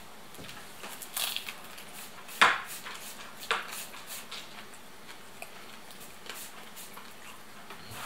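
Eating a baked samsa over a china plate: a few short crackles and clicks from the crisp pastry and the plate, the sharpest about two and a half seconds in, then chewing and quiet.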